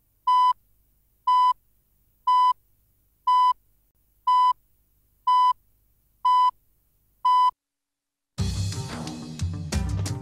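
Countdown beeps from a broadcast tape leader: eight short, identical high beeps, one a second. About a second after the last beep, theme music with drums starts.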